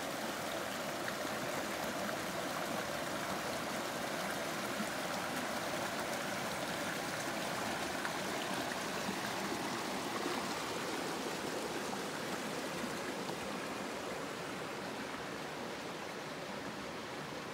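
Shallow rocky stream running over stones and boulders: a steady rush and burble of water, a little quieter near the end.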